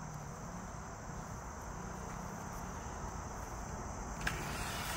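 Steady chorus of insects, a continuous high-pitched drone, over a faint low rumble, with one small click about four seconds in.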